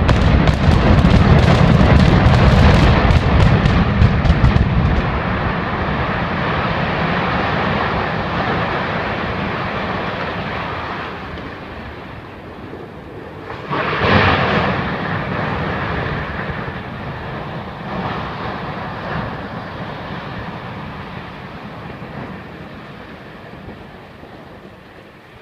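Explosive demolition charges going off at the base of a power-plant chimney: a rapid string of sharp cracks over the first few seconds inside a deep rumble, a second loud boom about 14 seconds in, then a long rumble that slowly fades.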